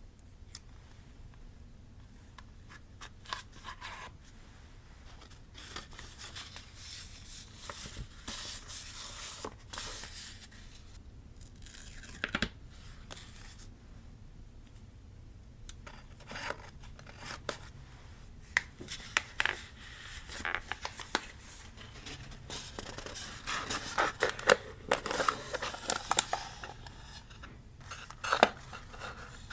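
Paper being handled for a journal: cut and torn, with scattered crinkles, scrapes and small taps. It starts sparse and becomes busier and louder in the second half.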